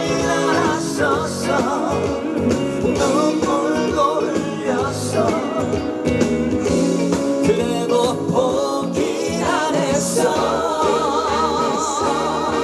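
Male singer performing a Korean trot song live over loud backing music, ending on a long held note with a wide vibrato.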